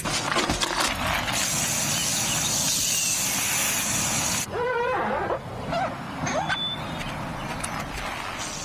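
A brush scrubbing a wet car wheel, then a garden hose spraying water over the car body with a steady hiss that cuts off suddenly about four and a half seconds in. Birds chirp briefly afterwards.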